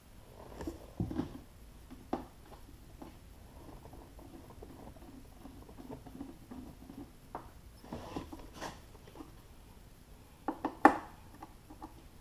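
Light clicks, taps and scrapes of a screwdriver working on a sheet-metal amplifier box, with a louder cluster of knocks near the end.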